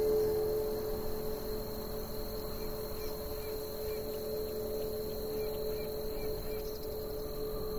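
Ambient soundtrack drone held on a steady low tone. Faint small chirps repeat about twice a second from about two seconds in.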